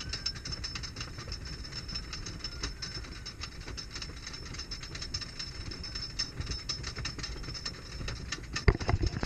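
Zippin Pippin wooden roller coaster train running on its track: rapid clicking and clatter over a steady hiss, with louder, heavier knocks starting near the end.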